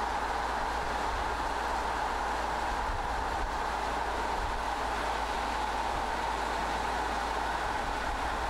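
Car driving at steady speed on asphalt: an even rush of tyre and wind noise with a low rumble underneath.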